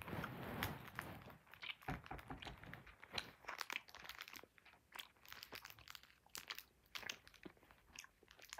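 A person chewing a sour candy close to the microphone: irregular, quiet crunches and mouth clicks.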